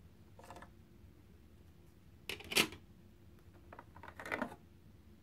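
LEGO plastic plates clicking and clattering as the court's tan floor section is pried off its studs and lifted away. There are three short clatters, the loudest about two and a half seconds in.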